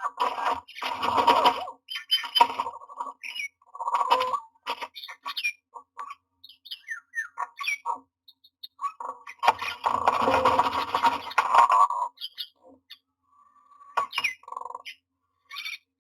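Common mynas calling: harsh, grating squawks mixed with short chirps and whistles, with a longer harsh call at the start and another lasting over two seconds about ten seconds in.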